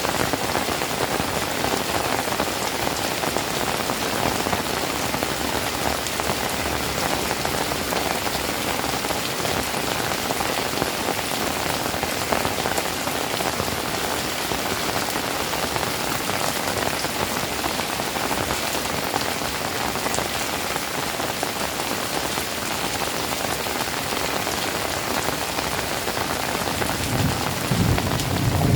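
Rain falling steadily, an even hiss of drops. Near the end a low rumble of thunder begins.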